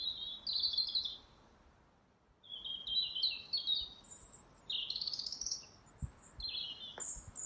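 Nightingale song: a rapid run of varied chirps, trills and whistled phrases, with a short break a little over a second in.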